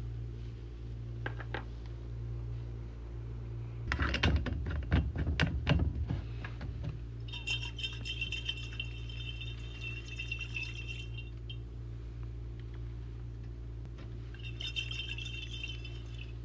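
Large glass bottle holding a liquid perfume mixture being handled: a cluster of knocks and clinks about four to six seconds in. The liquid then swishes inside as the bottle is swirled, twice, over a steady low hum.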